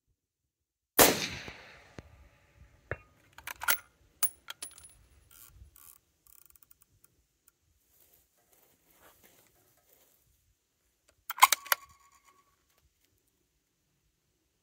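A 6.5 PRC rifle fires one shot about a second in, the report ringing out for about a second. It is followed by a run of light metallic clicks and clinks as the bolt is worked and the spent brass falls. Near the end comes another short cluster of sharp metallic clicks.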